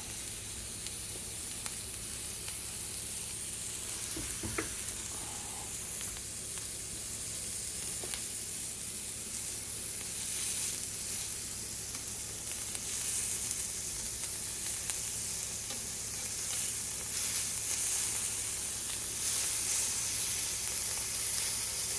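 Food sizzling as it fries in a pan, a steady crackling hiss that grows a little louder about halfway through, with a few faint clicks.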